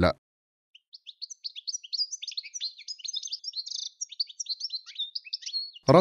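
Eurasian goldfinch singing: a rapid run of high twittering chirps and trills, starting a little under a second in and stopping shortly before the end.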